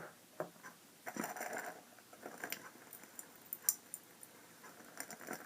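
Faint handling noises: a few light clicks and a short soft rustle about a second in, with scattered small ticks after.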